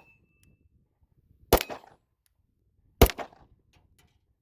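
Two 9mm shots from a Ruger RXM pistol, about a second and a half apart, each followed by a short echoing tail.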